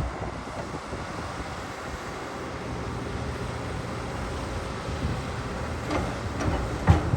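Excavator's diesel engine running steadily, with a few sharp clanks near the end, the loudest just before it stops.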